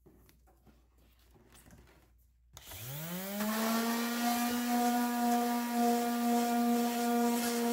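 Handheld electric power sander switched on about two and a half seconds in: the motor whines up to speed within a second and then runs steadily as it sands the rough, trimmed edge of an ABS plastic shell. Faint handling clicks come before it starts.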